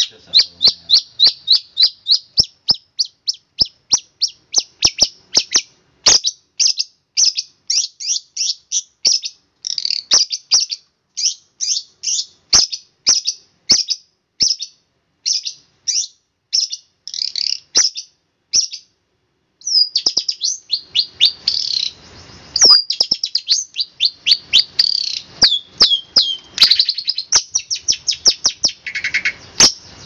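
Long-tailed shrike calling: a long run of sharp, high chirps, each dropping quickly in pitch, about two or three a second. After a short pause about two-thirds through, it breaks into faster, denser chattering.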